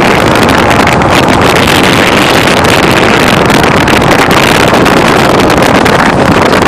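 Loud wind buffeting a phone microphone held out of the window of a Chevy Suburban driving at speed, mixed with the roar of its tyres on a wet road.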